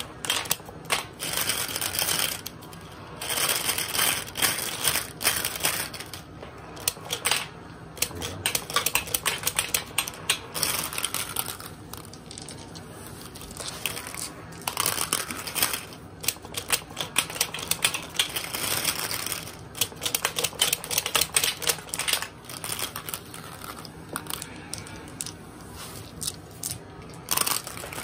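Rapid plastic clicking and clacking from a B-Daman Strike-Cobra marble launcher firing shot after shot, with marbles clattering against the plastic break bomb target. The clicks come in quick runs broken by short pauses.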